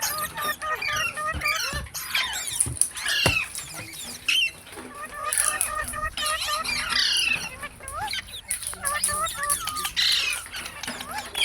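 Parrots chattering: a dense run of quick chirps and bending whistled calls overlapping throughout, with a few sharp knocks in the first few seconds, the loudest about three seconds in.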